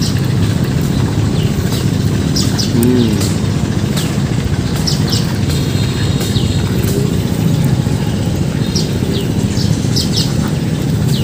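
Steady low outdoor rumble of ambient noise, with small birds giving short chirps every second or two.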